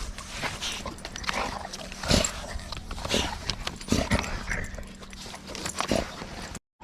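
A dog close by making a series of short, irregular noises, cutting off suddenly near the end.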